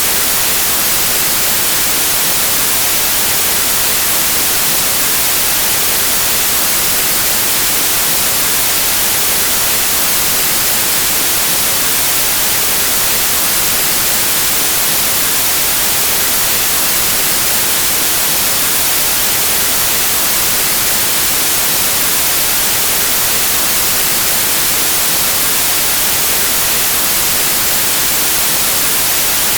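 Steady, loud white-noise static: an even hiss with no tones or breaks, brightest in the highest pitches.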